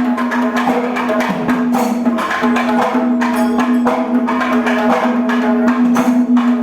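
Background music: quick, busy hand percussion over a steady held low note that drops out briefly about two seconds in.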